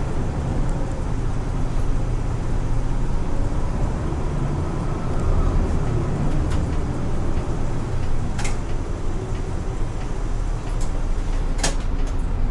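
Isuzu city bus heard from inside the cabin as it drives along the road: a steady low engine and road rumble. Two sharp clicks or rattles stand out, one about two-thirds of the way in and one near the end.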